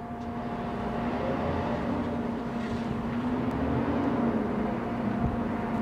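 Steady engine drone with a low hum that wavers slightly in pitch, growing a little louder over the first second.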